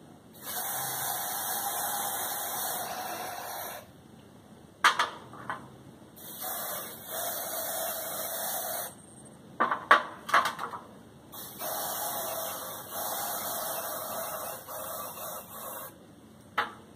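Aerosol can of white developer spraying in three long hissing bursts of a few seconds each, with a few short knocks between them: the developer coat going onto the parts in a dye penetrant test.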